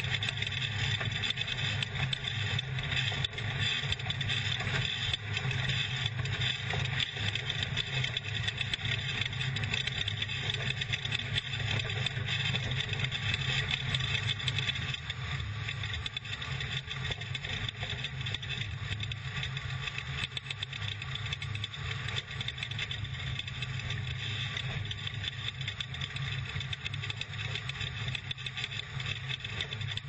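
Off-road race truck's engine running hard under load at speed, heard from inside the cab, with the body and chassis rattling over the dirt. The noise is steady, easing a little about halfway.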